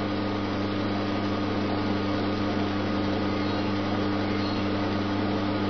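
Schaublin 102 toolmaker's lathe running at a steady speed, a constant electric-motor hum, with a live centre turning on its ball races as its runout is checked.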